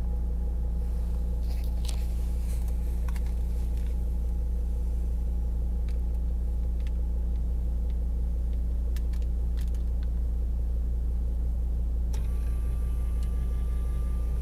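Volvo V70's 2.4-litre five-cylinder D5 turbo-diesel running steadily, heard from inside the cabin as a low rumble, with a few faint clicks. A steady high tone comes in near the end.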